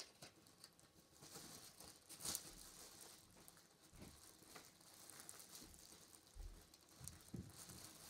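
Faint rustling and small clicks of sticker cards and clear plastic wrappers being handled, with one louder crinkle about two seconds in.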